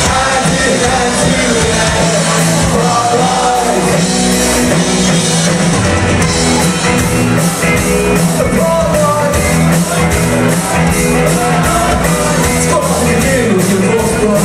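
Live rock band playing loudly, with regular crisp strokes, several a second, coming in about six seconds in.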